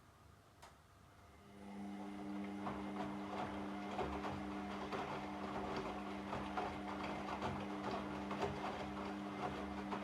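Washing machine starting up again after a pause: one click, then about a second and a half in the drum motor starts with a steady hum, and many small irregular clicks and knocks come from the load turning in the drum.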